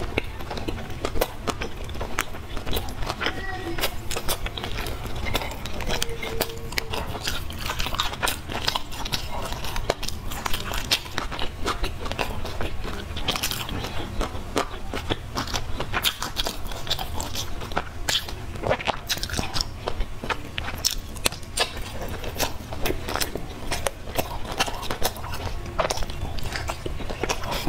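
Close-miked mouth sounds of a person eating: wet chewing and biting with many small, irregular crunchy clicks. A steady low hum runs underneath.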